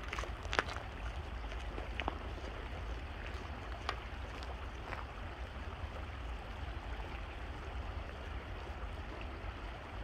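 Steady rushing of stream water, with a few faint short clicks in the first half.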